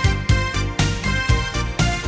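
Instrumental song intro with no vocals: a steady beat of about four low hits a second under sustained chords.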